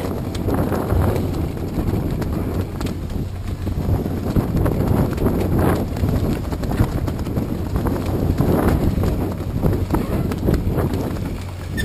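Wind buffeting an exposed microphone: a loud, uneven low rumble with gusts and scattered irregular knocks.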